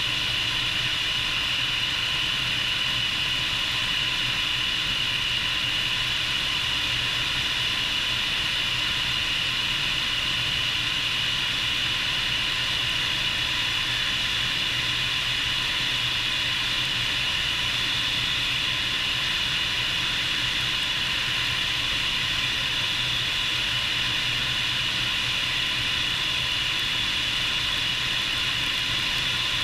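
Bell 430 helicopter's twin turboshaft engines and rotor running steadily: a high turbine whine over a low hum and a hiss of rushing air.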